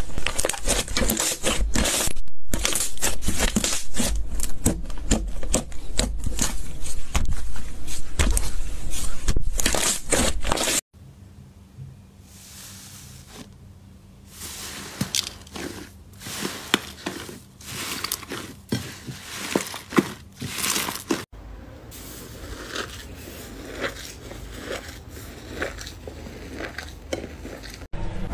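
Slime being squeezed and poked by hand, with dense crackling and popping clicks. About eleven seconds in, it turns much quieter, with only scattered soft clicks.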